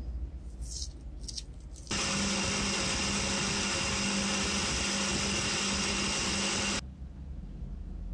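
Electric buffing wheel running with a steady hum while a small steel shaft from the pencil sharpener is held against the cloth wheel to polish it. It cuts in suddenly about two seconds in and stops abruptly near seven seconds, after a few faint clicks of small metal parts being handled.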